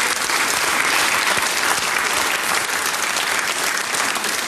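Live audience applauding, a dense, steady clapping.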